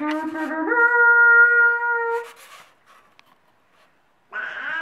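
Horn-like tooting blown through a blue plastic tube: a low note that steps up to a higher one and is held for about two seconds. After a short pause, another lower toot starts near the end and sinks a little in pitch.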